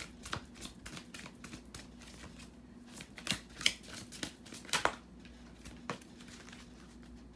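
Oracle cards being handled and shuffled: a run of crisp clicks and papery rustles, loudest in a few sharp snaps in the middle, over a faint steady hum.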